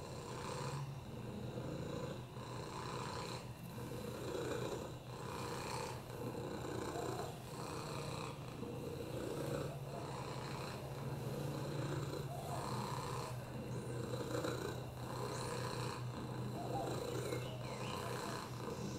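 Domestic cat purring steadily, the purr swelling and fading with each breath, about once a second.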